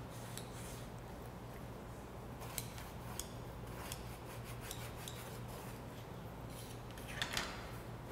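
Small hand file scraping along the edge of stitched leather in short, light strokes, sanding the two layers flush and smooth. A louder brushing rub comes near the end.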